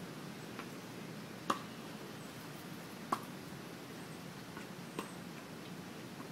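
Three sharp pops of a tennis ball being hit on a hard court, about a second and a half apart, the first the loudest, over a steady low outdoor hum.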